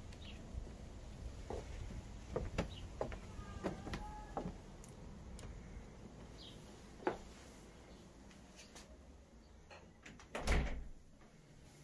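Scattered clicks and knocks, a short squeak about four seconds in, and a louder thump about ten and a half seconds in.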